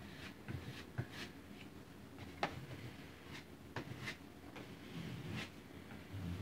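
Putty knife scraping and spreading spackling over a metal drywall patch, feathering it out. Faint, short, irregular strokes.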